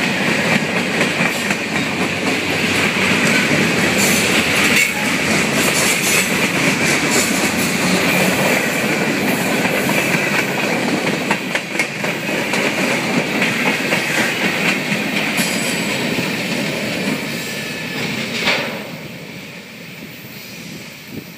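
Freight train cars rolling past at close range, their wheels clattering over the rail joints with scattered sharp knocks. Near the end a last sharp knock comes as the train's tail goes by, and the noise falls away.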